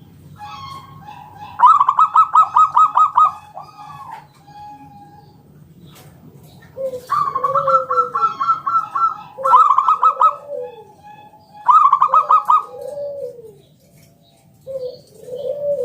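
Zebra dove (perkutut) song: four phrases of quick, evenly spaced clear notes, each ending in lower, drawn-out arching coos.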